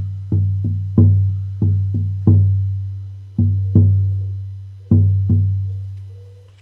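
16-inch horse-hide shamanic frame drum, hair left on the head, played with a soft beater. About nine deep, booming strokes come at an uneven, slowing pace, each ringing on. After the last stroke the drum rings out and fades near the end.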